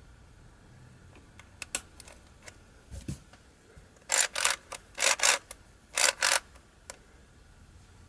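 Aluminium Rubik's Cube being handled. A few light clicks come as a piece is pressed back into place. Then, about four seconds in, six quick scraping layer turns follow in three pairs.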